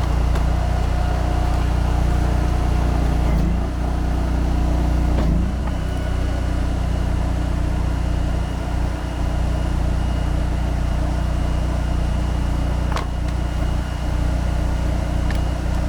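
Honda GX800 V-twin engine running steadily on a log splitter, with a few short sharp knocks about three and a half, five and a half and thirteen seconds in.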